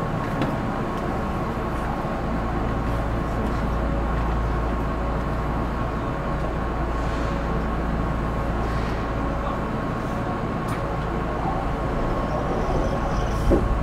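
Steady hum inside a Keihan 8000-series electric train standing at a platform and then pulling away about two-thirds of the way in. There is a faint knock near the end.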